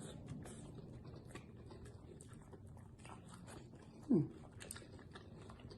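Faint clicks and crunches of fried frog legs coated in crushed hot Cheetos being handled and bitten, with a short falling vocal 'mm' about four seconds in.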